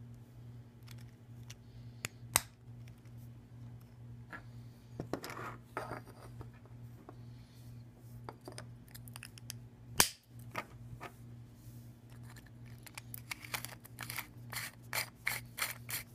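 3D-printed PLA turbine parts and small aluminum spacers being handled and fitted together by hand: scattered light clicks and rubs of plastic and metal, one sharp click about ten seconds in, and a quick run of clicks and rubs near the end. A steady low hum runs underneath.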